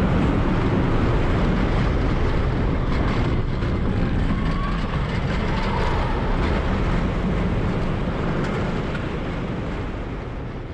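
Roller coaster ride recorded on board: the steady rumble of the coaster train running along its track, fading out near the end.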